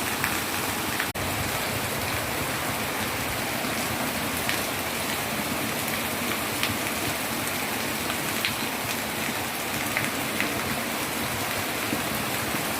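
Torrential monsoon rain pouring down steadily: a dense, even hiss with scattered sharper drop splashes. The sound drops out for an instant about a second in.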